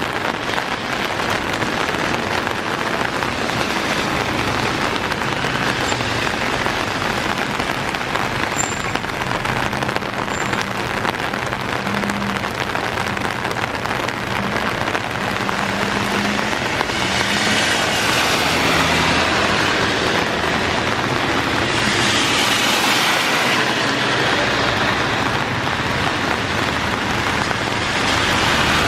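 Heavy rain pouring down steadily. Cars pass on the wet road, their tyre hiss swelling twice in the latter half.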